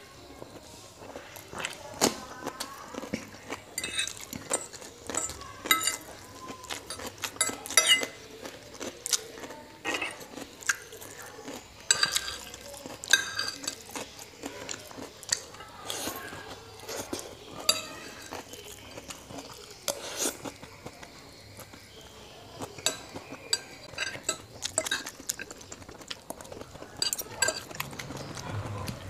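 Metal fork and spoon scraping and clinking against a ceramic plate while gathering up fried noodles. The clinks come irregularly, several a second at times, and some ring briefly.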